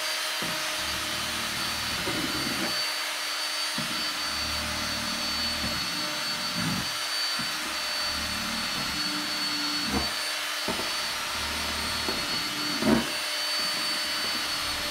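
Cordless drill running steadily with a high whine, boring holes through a thin aluminium mess tin lid, with a few sharp clicks.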